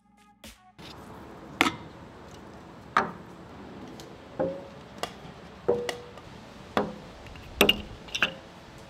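A drinking glass and glass mason jars set down one after another on a wooden picnic table: about eight sharp knocks, roughly one a second, several leaving a brief glassy ring.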